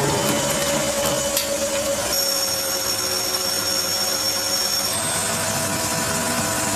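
A power tool running steadily on metal, a grinding hiss with a steady hum. A higher whine joins about two seconds in and drops out about three seconds later.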